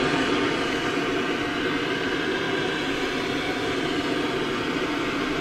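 Handheld gas torch burning with a steady hiss, heating a seized steering adjuster sleeve to free it.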